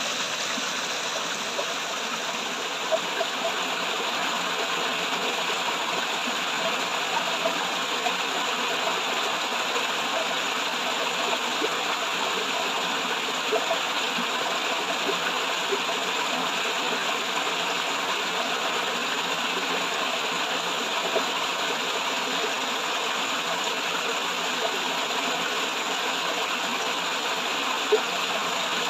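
Water flowing and falling in a small cascade: a steady rushing splash, with a few brief sharper spatters now and then, the loudest near the end.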